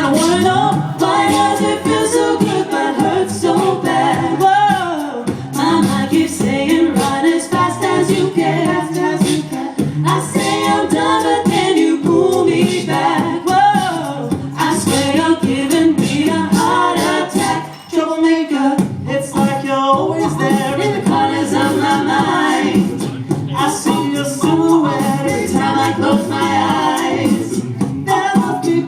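An a cappella vocal group singing a pop song in several-part harmony, voices only, with low bass parts under a higher lead line; the voices drop out briefly about 18 seconds in.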